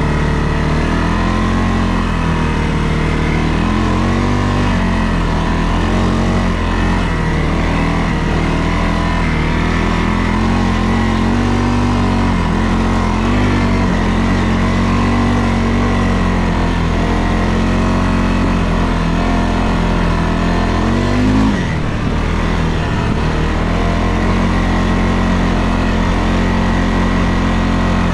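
2022 CFMOTO CForce 600 ATV's single-cylinder engine running as the quad is ridden, its pitch rising and falling with the throttle. About three-quarters of the way in it revs up sharply, then drops back.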